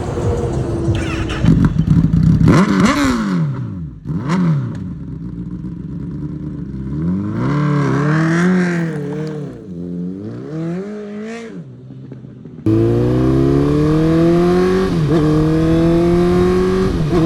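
Honda CBR1000RR inline-four engine revved in a series of throttle blips, its pitch shooting up and falling back each time. Then, after an abrupt cut, the engine runs at higher, steadier revs that climb slowly, with two brief breaks.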